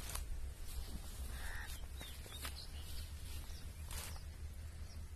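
A rooster reacting to stinging leaf-juice drops just put in its eyes and nostrils: a few short, sharp sounds from the bird, the longest about four seconds in, over a steady low rumble.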